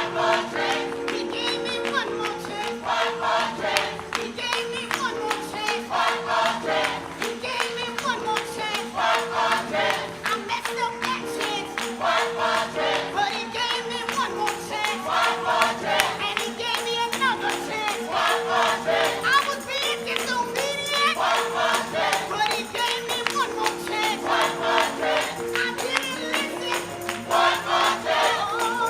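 Gospel worship music: voices singing over long held tones, with a steady shaken percussion beat.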